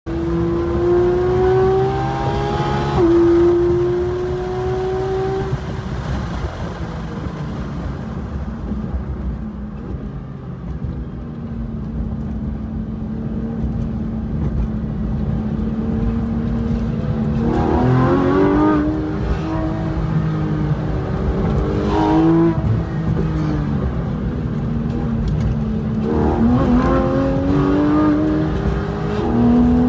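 Porsche 911 GT3 RS's naturally aspirated flat-six on a hard track lap: it pulls with rising pitch, drops sharply at an upshift about three seconds in, then eases off for a slow corner and holds a steady lower note. In the second half it accelerates again with the pitch climbing, broken by quick jumps at gear changes.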